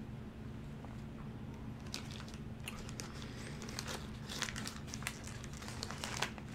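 Paper burger wrapper crinkling as it is peeled back from the burger by hand, a run of quick crackles starting about two seconds in.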